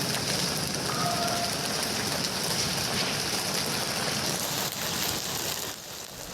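Heavy rain falling steadily on hard surfaces, a dense continuous hiss that eases a little near the end.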